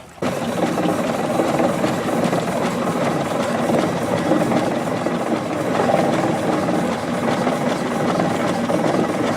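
An engine running steadily and close, starting suddenly just after the beginning.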